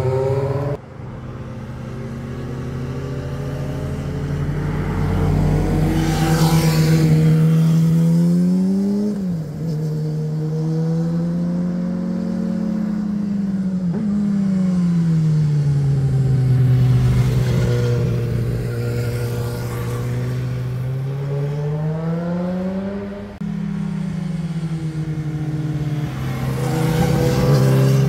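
Sport motorcycle engines as several bikes ride through a hairpin and accelerate away. The engine pitch climbs and falls and drops abruptly a few times.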